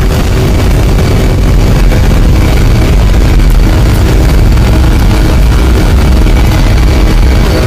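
C-17 Globemaster III's four turbofan engines at takeoff power, heard inside the cockpit during the takeoff run: a loud, steady, deep rumble with a faint steady whine above it.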